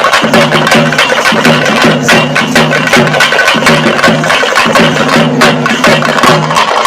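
Loud percussion-led music: fast, sharp drum strikes over a low melodic figure that repeats about every half second.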